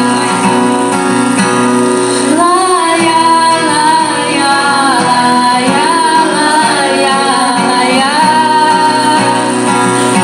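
Female voices singing a melody line into microphones over a steady instrumental backing. The voice comes in about two seconds in and drops out about two seconds before the end, leaving the accompaniment.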